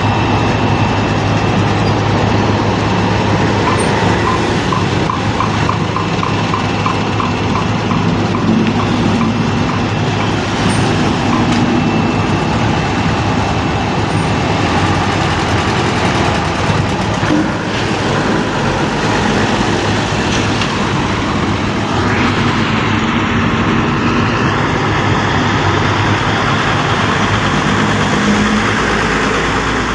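Vehicle engine running steadily with a constant low hum under broad road noise. From about four seconds in to about ten, a regular run of short high ticks, roughly two a second, sits over it.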